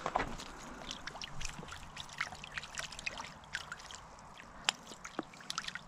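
Small water splashes and drips, scattered and irregular, from a landing net and a small brook trout flipping in it at the water's edge.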